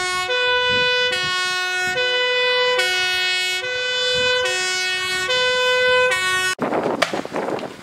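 Fire engine's two-tone siren, alternating between a low and a high note about every three-quarters of a second. It cuts off abruptly about a second before the end, leaving a rushing noise.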